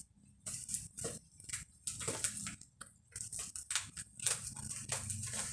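Shiny gift wrapping crinkling and tearing as it is pulled open by hand, in irregular crackly bursts.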